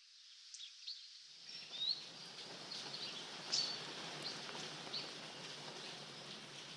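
Small birds chirping in short high calls, one of them rising in pitch, over a steady background hiss that fills out lower about a second in.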